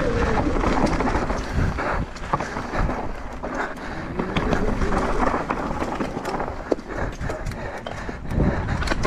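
A Commencal Meta mountain bike riding fast down a rough dirt and stone forest trail: the tyres crunch over stones and the chain and frame rattle, with many sharp clicks and knocks.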